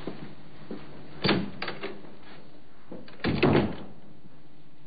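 A door opening with a latch click about a second in, then shutting with a louder knock and rattle about two seconds later.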